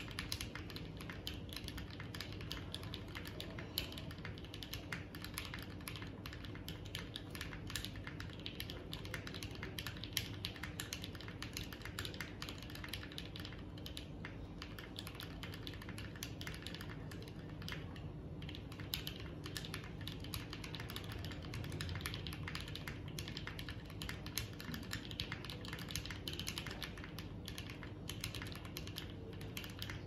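Fast, continuous typing on a mechanical keyboard fitted with CMK Peach Blossom keycaps: a dense, unbroken stream of key clacks, keys struck in quick succession as in a typing speed test.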